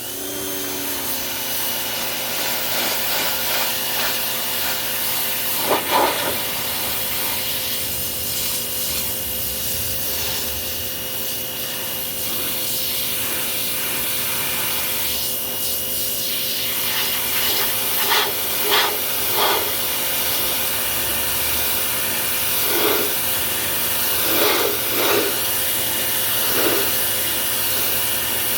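Pressure washer running and spraying: a steady dense hiss over a steady pump whine, with brief louder surges several times.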